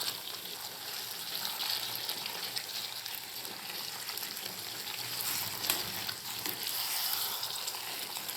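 Pan of soya chunk and potato gravy sizzling steadily as it cooks down, with an occasional click.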